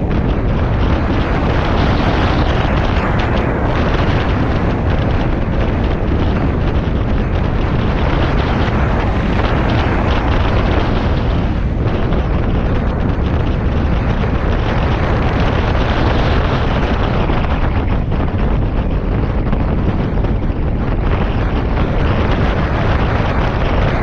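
Heavy, steady wind rumble on the microphone of a moving Honda PCX 125 scooter, mixed with the noise of the ride.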